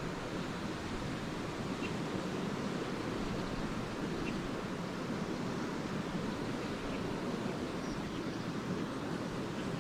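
Small lake waves washing steadily onto a sandy shore, with a few faint, brief chirps of swallows scattered through.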